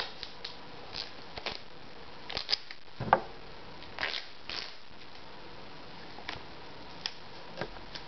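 Duct tape being handled: scattered short rips and crinkles as a strip is pulled off the roll and torn, the loudest about three seconds in.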